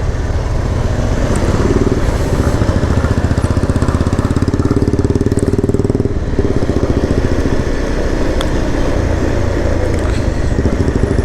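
Motorcycle engine running while riding along a road, with road and wind noise. The engine note is stronger for a few seconds in the first half, then settles.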